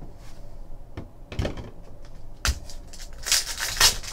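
A few light knocks and taps of cards being handled, then from about three seconds in the crinkling rip of a foil trading-card pack being torn open.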